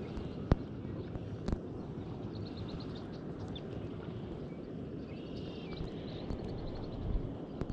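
Spinning reel being cranked to retrieve a lure, over a steady low rush of wind and water. Two sharp clicks come about half a second and a second and a half in, and faint bird chirps are heard midway.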